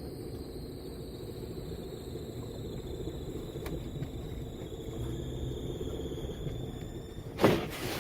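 Steady low rumble of a car's engine and tyres heard from inside the cabin while driving through deep snow, with a faint high whine over it. A brief louder noise comes near the end.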